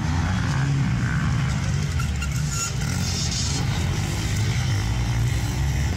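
Several motocross dirt bikes running on the track at once, a steady, loud engine drone as riders ride the course.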